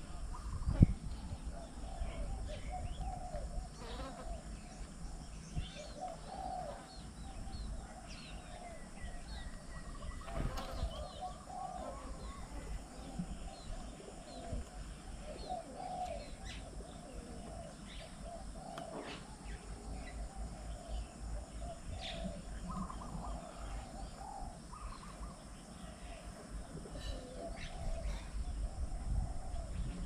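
Many birds calling at once: a steady mix of short high chirps and a lower, busier chatter of calls. A single sharp knock about a second in stands out above them.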